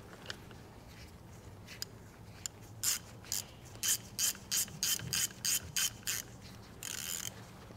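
Hand ratchet wrench clicking in a run of about ten short strokes, roughly three a second, then one longer stroke near the end, as a plug in the final drive hub of a CAT 259D3 compact track loader is turned.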